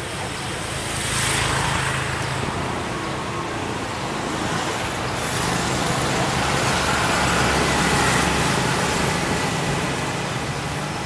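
Street traffic: motor scooters passing close by, one swelling up about a second in and another, longer pass from about five to nine seconds, over a steady low engine hum.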